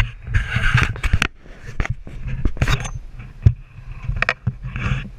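Handling noise of a GoPro camera on a handheld pole: a string of irregular knocks and scrapes on the camera housing as it is swung around, over a low wind rumble on the microphone.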